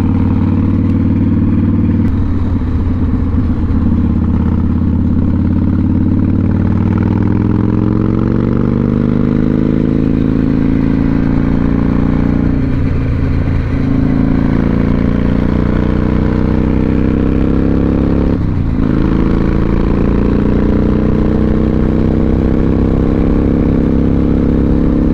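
Cruiser motorcycle engine pulling hard under acceleration onto a highway, its note climbing in pitch, with brief breaks about 2, 13 and 18 seconds in as it shifts up through the gears. Wind and road noise run under it.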